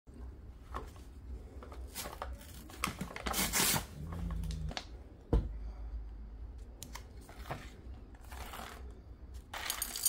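Paper coffee bag rustling and crinkling as it is handled and opened, with scattered clicks and one sharp knock about halfway. Near the end, a dense hiss comes in as whole coffee beans start pouring into the steel cup of a blade grinder.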